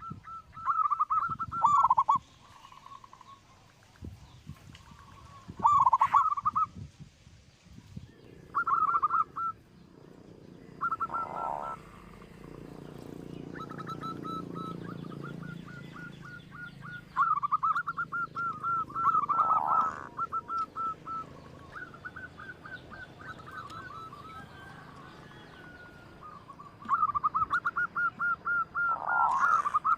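Local zebra dove (perkutut) singing: repeated phrases of rapid, staccato cooing notes, each phrase a second or two long and a few seconds apart.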